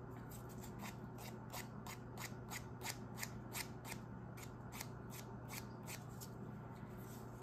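Nail file rasping along the edge of a cured resin coaster in short, quick strokes, about three a second, filing down raised bumps of resin overfill.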